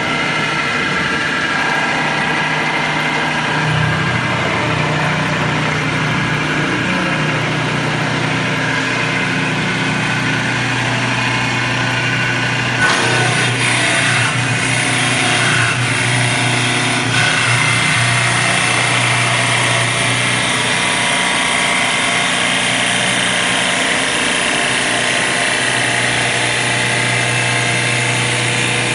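Automatic wood lathe running with a steady motor hum; about 13 seconds in, its cutter bites into the spinning wooden blank and a harsh, hissing cutting noise joins the hum as shavings are thrown off.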